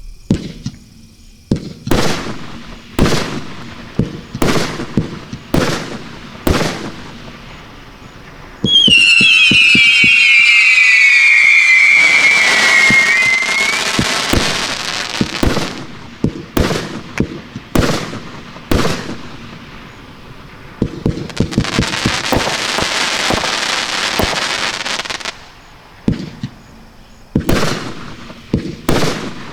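Multi-shot firework cake firing: sharp shots and bursts about once a second. About nine seconds in, a loud group of whistles glides down in pitch for several seconds and runs into crackling. More shots follow, then a long stretch of crackling, then more shots near the end.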